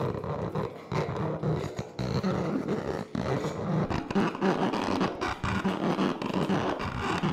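Amplified scraping and rattling of a small ball worked against the wire bars of a metal toast rack held at a microphone: a dense, continuous grinding clatter full of small clicks.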